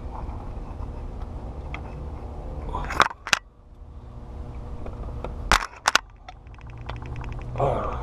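Hand tools working on a DT466 diesel's injector: sharp metal clanks about three seconds in and again around five and a half to six seconds, then a rapid run of clicking like a ratchet wrench for about a second, over a steady low hum.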